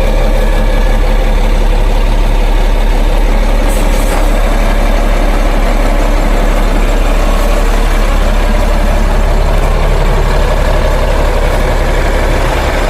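Large goods truck's engine running steadily at low revs, a continuous heavy drone with no change in level.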